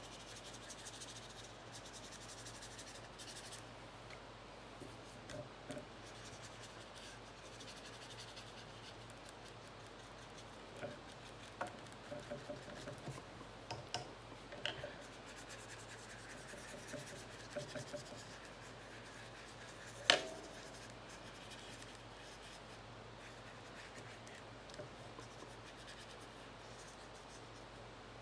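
Paintbrush strokes on paper: a faint soft scratching, with a few light taps in the middle and one sharp click about twenty seconds in.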